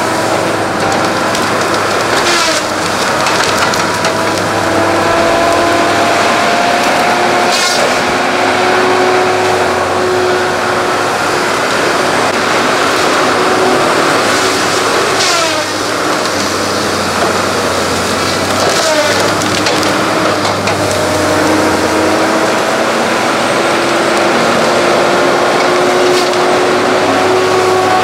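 John Deere tracked feller buncher running hard, its engine and hydraulics making a loud steady noise under the whine of the spinning disc-saw felling head. The whine dips briefly a little past halfway, and a few sharp woody cracks come as the head grips and cuts red pine trunks.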